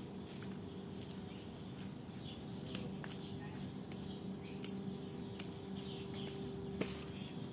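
Scissors snipping geranium stems while pruning: a handful of short, sharp snips spaced a second or more apart, over a steady low hum.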